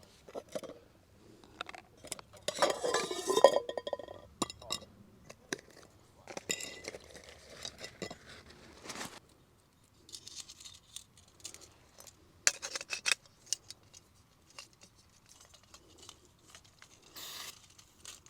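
Metal camp cookware being handled: pot, lid and utensils clinking and knocking in scattered bursts, busiest for a second or so near the start, with some rustling.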